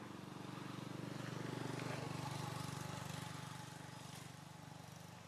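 A motor engine running steadily with a low hum, growing louder to about two seconds in and then fading, like a vehicle passing by.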